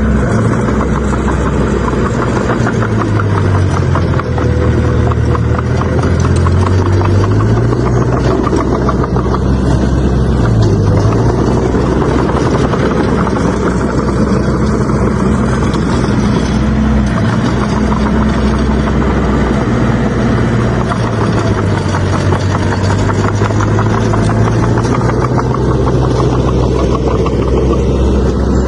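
Bulldozer's diesel engine running hard while pushing soil, its low drone dipping and rising in pitch a few times as the load changes.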